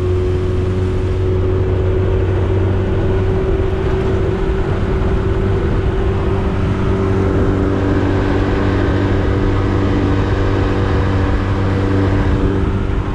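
Small tiller-steered outboard motor running at a steady cruising speed, pushing an aluminium jon boat along, with water rushing past the hull.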